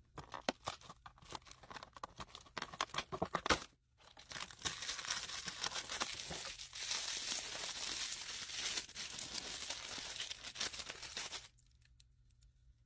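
Cardboard packaging being pushed in and torn open along its perforations by fingernails: a run of sharp crackles and pops for about four seconds. Then comes a steady, continuous crinkling and tearing of the thin paper wrapping around a small figurine, which stops abruptly about a second before the end.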